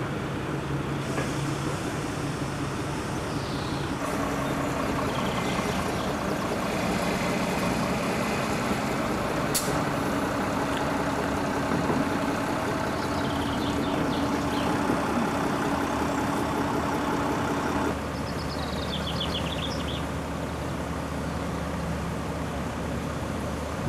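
Heavy lorry's diesel engine running steadily, a low even hum, with one brief sharp sound near the middle.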